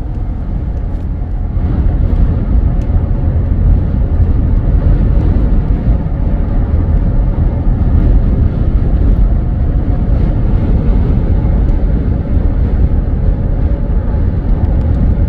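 Steady, loud low rumble of a vehicle driving in high wind, with road noise and wind buffeting mixed together.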